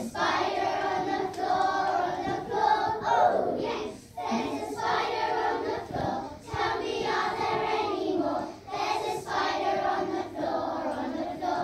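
A children's choir singing a song together, in phrases broken by brief pauses for breath.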